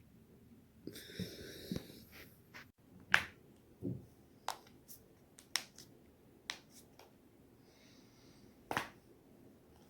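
Joints being deliberately cracked: a string of about eight sharp pops, irregularly spaced, the loudest about three seconds in. A brief hissing rustle comes about a second in.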